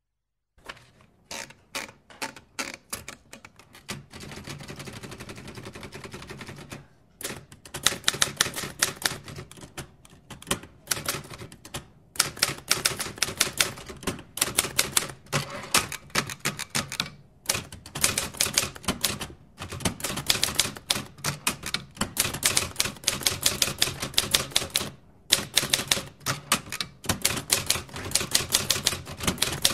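Typewriter being typed: slow, scattered keystrokes at first, then fast runs of clacking keys at several strokes a second, broken by short pauses.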